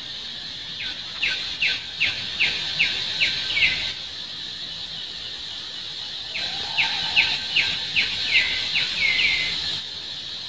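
A bird singing two phrases of seven or eight quick repeated notes each, about a second in and again past halfway, the last notes of each phrase slurring downward.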